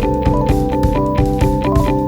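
Background music: an instrumental tune of keyboard and guitar over a steady beat.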